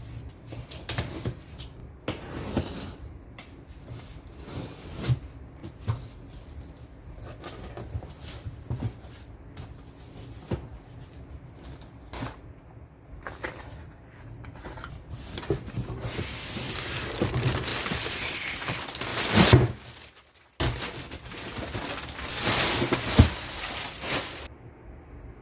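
Packaging being handled while a new printer is unboxed: scattered knocks and taps on cardboard. About two-thirds of the way through come two long stretches of loud rustling packaging, broken by a brief gap and cut off near the end.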